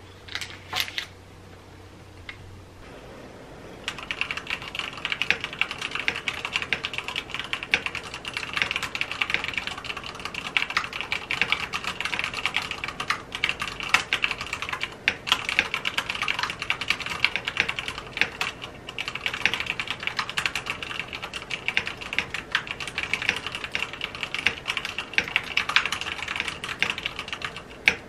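Fast, continuous typing on a mechanical keyboard, a steady run of key clacks that starts about four seconds in, after a few light clicks.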